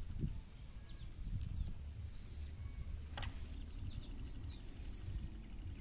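Low steady rumble with faint, short bird chirps above it, and one sharp click about three seconds in.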